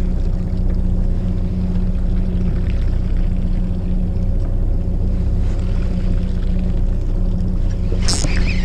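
Fishing boat's engine running with a steady low hum. A brief sharp rattle near the end.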